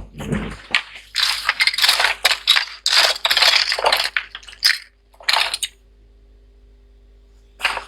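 Small hard parts clinking, rattling and scraping as they are handled during a laptop processor swap: busy clatter for about five seconds, a short burst, a quiet pause, then more clatter near the end.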